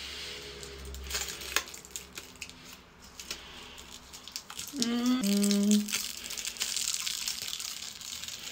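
Special-effects prosthetic makeup being peeled off the skin at the neck: sticky crackling and small tearing clicks as the appliance lifts away. About five seconds in comes a brief hum that rises and then holds for a moment.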